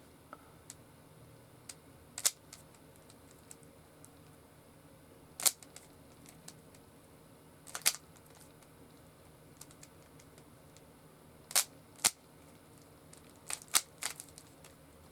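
Plastic Rubik's cube being twisted by hand: sharp single clicks a few seconds apart, then a quick run of several clicks near the end.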